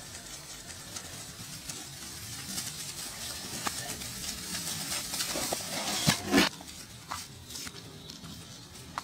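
Steady hiss with scattered rustling and crackling, and a few louder sharp cracks about six seconds in.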